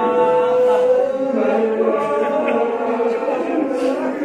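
A man's voice chanting a melodic recitation into a microphone, holding long notes and stepping down to a lower note partway through.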